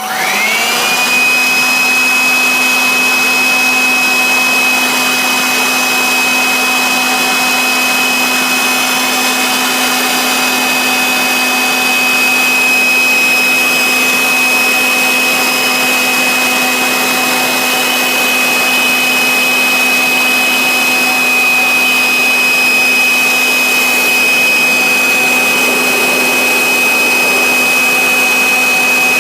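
High-speed spindle motor of a PCB engraving CNC router spinning up in the first second, then running at a steady speed with a high whine.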